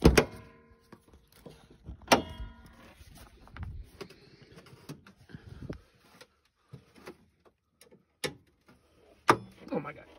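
Two sharp metallic clunks about two seconds apart, each with a short ringing tail, then scattered light clicks and knocks: a 2010 Ford Focus's door and hood being worked open to get at the engine.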